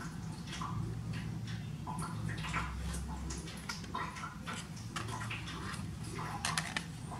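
Faint irregular clicks and rustles of hands handling and folding a pair of plastic folding sunglasses at the hinges, over a steady low hum.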